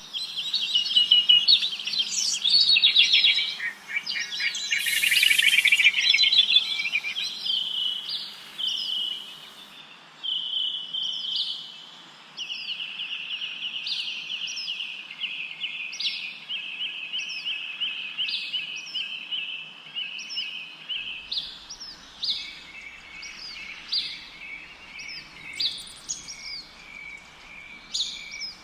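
Songbirds singing: long rapid trills overlaid with short, repeated downward-slurred chirps from more than one bird.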